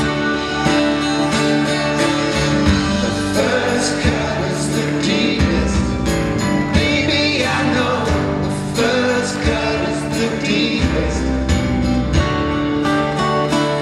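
Live acoustic music: acoustic guitars strummed and picked, with a wavering melody line over them through the middle.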